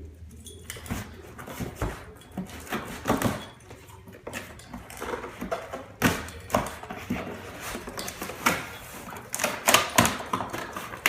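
Packaging being handled: rustling of plastic-wrapped parts and foam inside a cardboard box, with irregular sharp knocks, the loudest about six seconds in and near the end.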